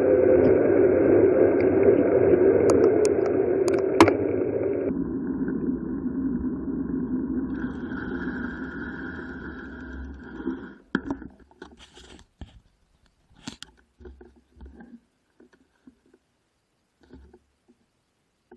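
Wind rushing over the microphone of a camera on a bicycle coasting downhill, with tyre noise on the asphalt. The rushing drops abruptly about five seconds in, then fades steadily as the bike slows, and by about ten seconds it has given way to near silence with a few scattered faint clicks.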